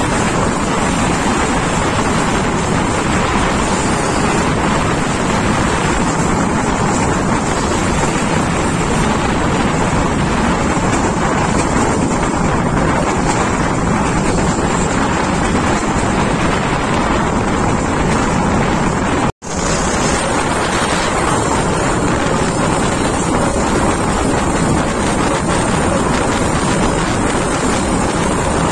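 Steady wind buffeting the microphone over the running noise of a passenger train moving along the track, heard from an open carriage window. The sound drops out for an instant about two-thirds of the way through, then carries on the same.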